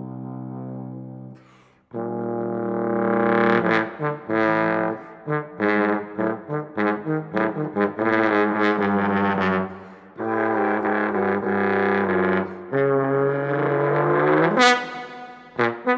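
Solo trombone. A low held note fades away, and after a short pause the playing comes back loud: long held notes broken by quick runs of short, separated notes. Near the end a long note swells to a bright, brassy blare.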